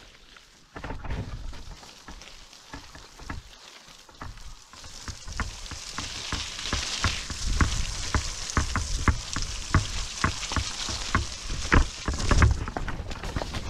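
Mountainboard's air-filled tyres rolling over a wet dirt trail: a crackling hiss of wet grit and mud that builds from about five seconds in, with many sharp ticks and low thumps over bumps.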